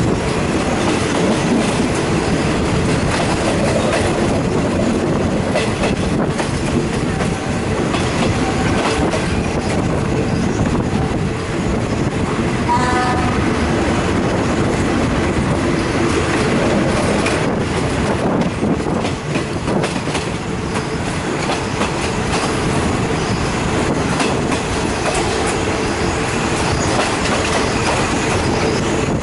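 Passenger train running along the track, heard from an open carriage window: a steady rumble and clatter of wheels on the rails with rushing air, and a brief ringing tone about halfway through.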